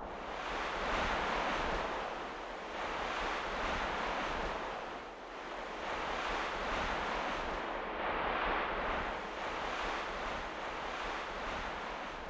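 Waves washing in, a dense rushing noise that swells and ebbs every few seconds.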